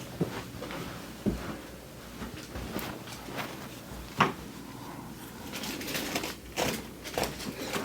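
Scattered knocks and clunks of handling, about five in all, with light rustling between them. The sharpest knock comes about four seconds in.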